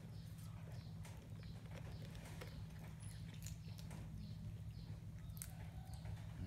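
A cat licking and chewing bread, making small wet smacking clicks about two to three times a second over a steady low hum.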